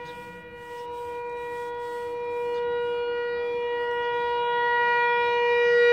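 Outdoor tornado warning siren sounding its monthly test: a steady tone at one pitch, growing steadily louder over a few seconds.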